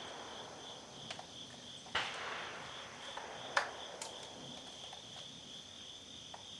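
Crickets chirping steadily, with a few short sharp clicks and knocks; the loudest come about two seconds and three and a half seconds in.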